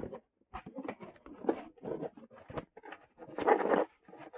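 Rustling and scraping of CPU cooler packaging being handled: a run of short, irregular rubs and taps, with a louder rustle about three and a half seconds in.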